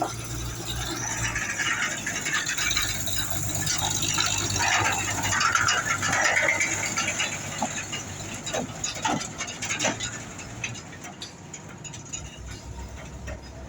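Road traffic passing: a vehicle's engine and rattling body grow louder, peak around the middle with a rising whine, then fade away.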